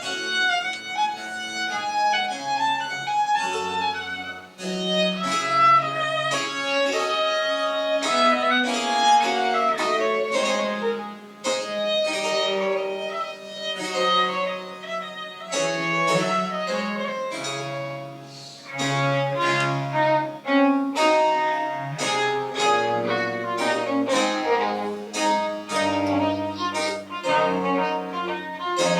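Baroque chamber music played live: a violin melody over a lower bowed-string bass line, in phrases with brief breathing gaps between them.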